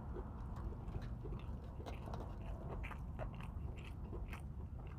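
A person chewing a mouthful of a chicken sandwich with bacon and onion rings, close to the microphone. Many small irregular wet mouth clicks and light crunches are heard.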